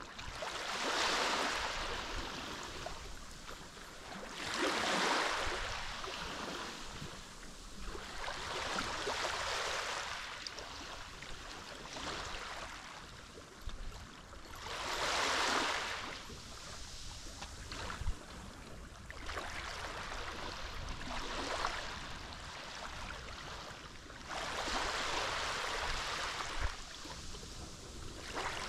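Mediterranean sea waves breaking and washing onto the shore, each rush of water swelling and fading every four to six seconds.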